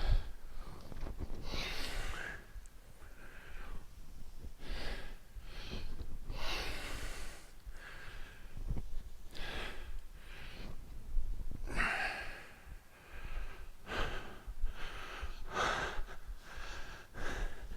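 Heavy breathing from someone winded by pistol squats: uneven, airy breaths in and out, about one a second.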